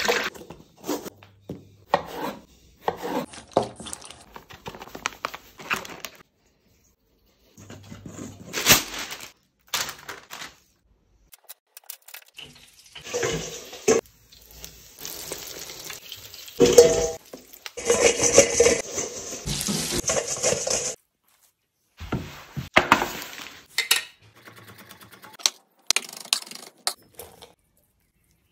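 Kitchen sounds cut together: a fork whisking batter and clinking against a stainless steel mixing bowl, and oil sizzling in a deep fryer. Broken by abrupt cuts and short silences.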